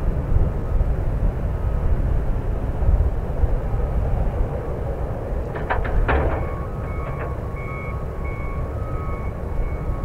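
Boeing 737-700's CFM56-7B jet engines at taxi power: a steady low rumble with a faint whine that wavers in and out. A few short knocks come about six seconds in.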